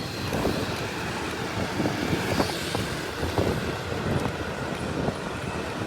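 Rumbling road and wind noise from a moving ride, with irregular crackles and knocks throughout.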